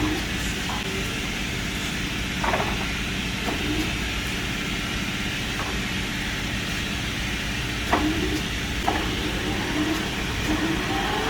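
Kingston HR 2000 heavy-duty engine lathe running with a steady mechanical hum. Several short clunks sound at irregular intervals, the sharpest about eight seconds in.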